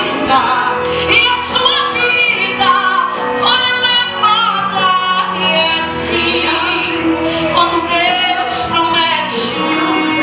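A woman singing a gospel worship song into a handheld microphone, holding long notes over steady instrumental backing.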